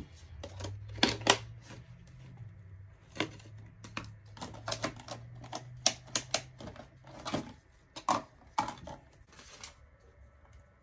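Plastic lids being snapped shut onto plastic deli cups in a plastic tub: a run of sharp, irregular clicks and knocks.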